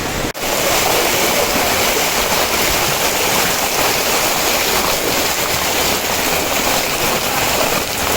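Floodwater of a river swollen by heavy rain rushing steadily, with a brief dropout about a third of a second in, like a cut between clips.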